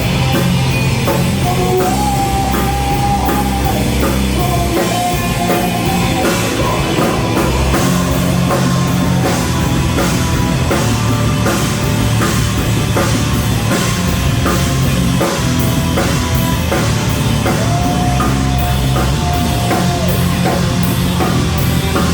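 Live rock band playing an instrumental passage: loud distorted guitars, bass and a drum kit keeping a steady beat, with no vocals.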